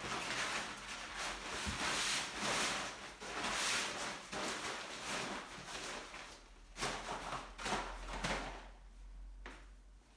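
Rustling and clattering as props and cases are handled and packed away, quietening to a few separate clicks near the end.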